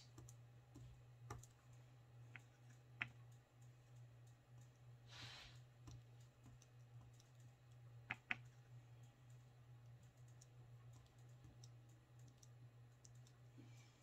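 Near silence over a low steady hum, with a few faint, scattered clicks and taps as a dotting tool and wooden clothespins are handled on the table while acrylic polka dots are painted, and one brief soft rustle about five seconds in.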